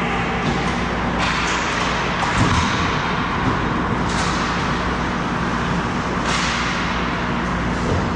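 Ice hockey skate blades carving and scraping on rink ice, with sharper hissing scrapes like hard stops about a second in, about four seconds in and about six seconds in.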